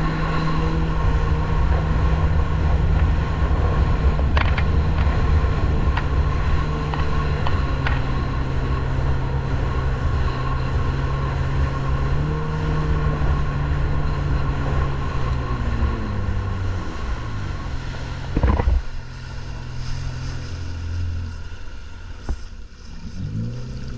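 Boat engine running at speed with water rushing along the hull, then throttled back about two-thirds of the way through, its pitch falling. A single loud thump follows, and the engine carries on at a slow, lower note, picking up briefly near the end.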